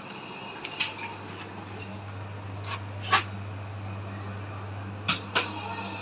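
Low steady hum of a hardener (blast) freezer's refrigeration unit running, with a handful of short sharp sounds over it: the loudest about three seconds in, and two close together near the end.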